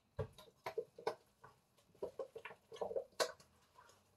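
Wooden spoon stirring thick cake batter in a stainless steel bowl: irregular knocks and scrapes against the bowl, two or three a second, with one sharper knock near the end.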